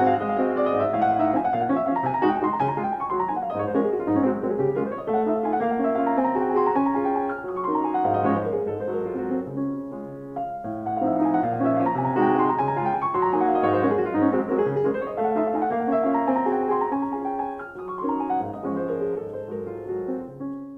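Solo piano music with rippling runs of notes over low held bass notes; it thins out for a moment about halfway through and fades out at the end.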